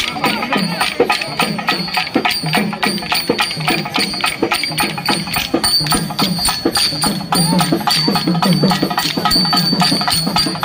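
Kolatam stick dance: many short wooden sticks clacking together in a quick, even rhythm, over traditional folk music with a high ringing bell-like tone.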